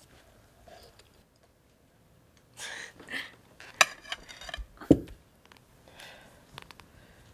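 Quiet handling of glasses and dishes: a brief rustle, then a glass clinks and is set down with a thump about a second later, over faint room tone.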